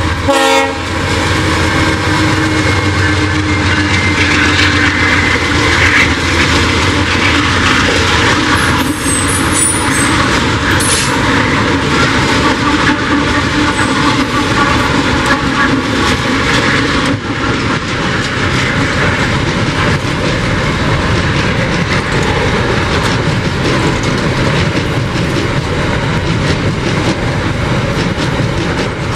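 Freight train with six GE Dash-9 diesel locomotives passing close by. The horn's last blast cuts off in the first second, then the locomotives' engines and wheels run past. The container wagons follow with clattering wheels and a brief high wheel squeal about ten seconds in.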